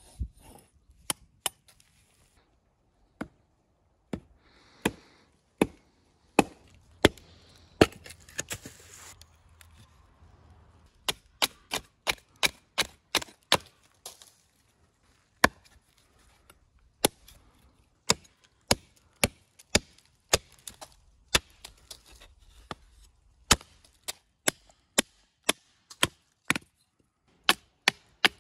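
Large curved chopping knife striking and splitting a wooden branch: a string of sharp, irregular chops, mostly one or two a second, as the wood is split and shaved into kindling.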